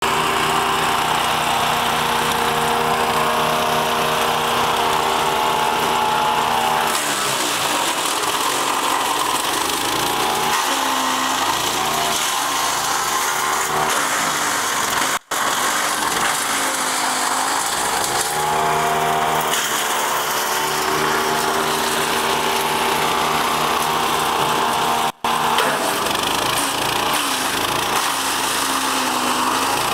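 Engine-driven wood chipper shredding olive branches, with a continuous grinding under a steady engine note. Repeatedly, the engine note sags and climbs back as the machine takes load. The sound breaks off briefly twice.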